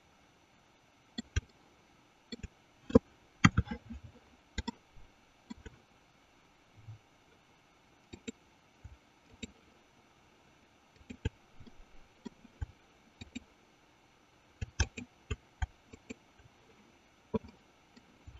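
Computer mouse clicking: sharp clicks at irregular intervals, some singly and some in quick pairs or short runs, the loudest run about three seconds in.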